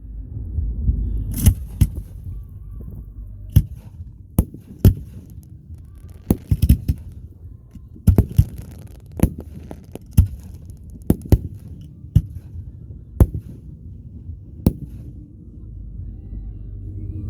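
Fireworks going off: about fifteen sharp bangs at irregular intervals over a low rumble.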